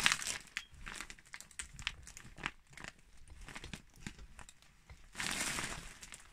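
Plastic packaging crinkling and crackling in quick irregular snaps as clothes in their bags are rummaged through, with a longer rustling swish about five seconds in.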